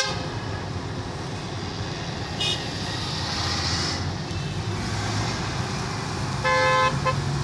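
Highway traffic noise with a steady engine hum. There is a sharp click at the start and a short high toot about two and a half seconds in. Near the end a car horn honks, the loudest sound, for under half a second, then gives a quick second beep.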